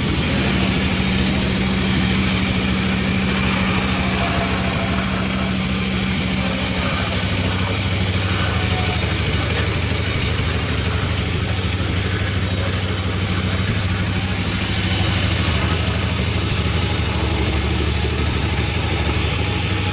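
Panda36 sawmill's engine running steadily, with a lower hum joining about seven seconds in.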